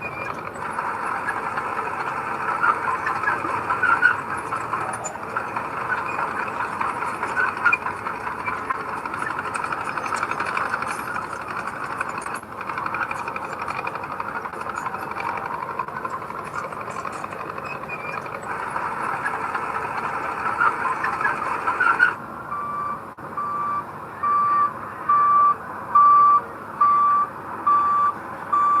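Heavy earthmoving machinery running with a steady, noisy mechanical clatter. About three-quarters of the way through, this gives way abruptly to a reversing alarm beeping about once a second as a machine backs up.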